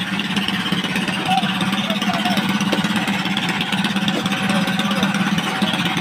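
Engine on a fishing boat running steadily, with a fast, even pulsing beat.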